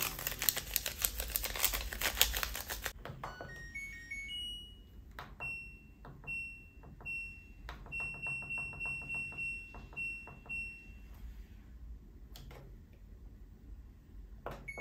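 Top-loading washing machine's control panel beeping as its buttons are pressed: short high beeps, each with the click of a button, several in quick runs while a setting is stepped through, and one more near the end. Before that, about three seconds of dense crackling rustle as powder is poured into the drum, cut off suddenly.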